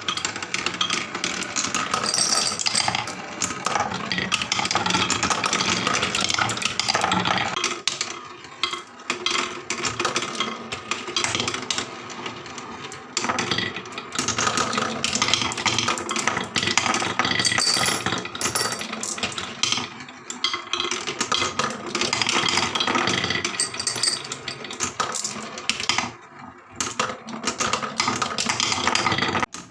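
Many marbles rolling and clattering down a wooden marble run, a dense continuous stream of small clicks and knocks that eases off briefly a few times.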